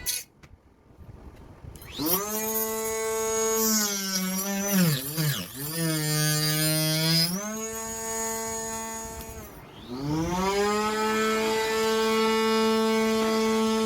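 Small 895 DC motor spinning a mini table saw blade. It starts with a whine about two seconds in, dips and wavers in pitch around the middle, runs lower, rises again, then winds down. It starts up once more and runs steadily to the end.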